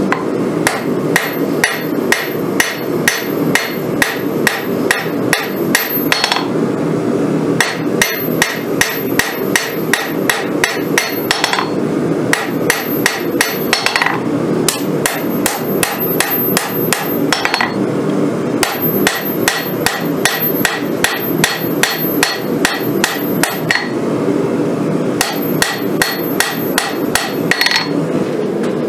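Hand forging hammer striking a red-hot steel bar on an anvil, about three blows a second in runs of several seconds with short pauses, each blow ringing off the anvil. A steady low rush runs underneath.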